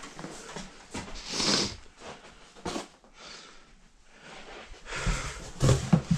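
Cardboard and plastic packaging being handled: irregular rustles and clicks, a hissing swish about a second and a half in, and a few soft thumps near the end.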